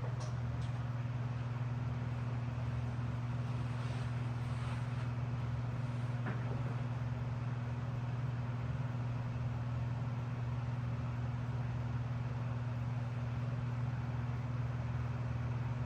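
Electric fan running steadily with a low hum, and a few faint ticks near the start and about six seconds in.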